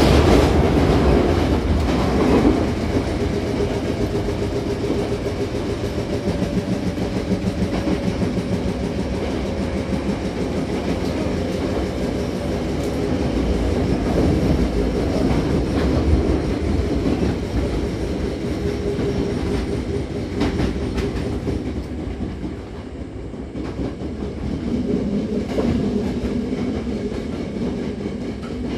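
Running noise inside a Hankyu 7000-series electric commuter car: a steady rumble of wheels on rail with now and then a clack over rail joints.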